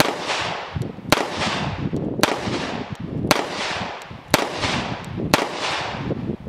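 Kimber Ultra TLE II, a compact 1911 pistol in .45 ACP with a 3-inch barrel, fired six times at a steady pace of about one shot a second, each loud shot trailing off in a short echo.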